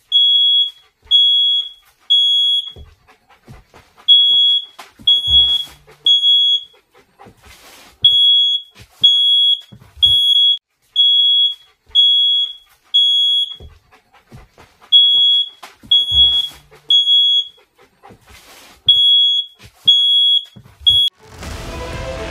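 Electronic alarm beeping: a loud, high, steady beep about half a second long, repeated roughly once a second, mostly in groups of three separated by longer gaps. Faint knocks and thuds sound between the beeps, and background music comes in near the end.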